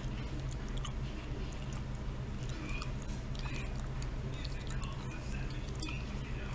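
Scattered plastic clicks and scrapes of hands working at a chainsaw's air filter cover, whose knob keeps spinning without letting the cover come off, over a steady low hum.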